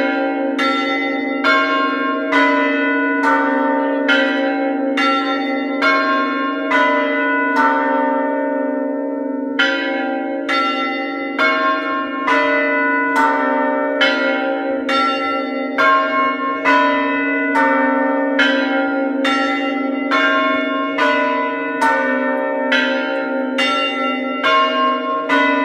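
Eastern Orthodox monastery church bells ringing: repeated strokes about once a second over the steady hum of the larger bells still sounding. The strokes pause briefly about a third of the way in.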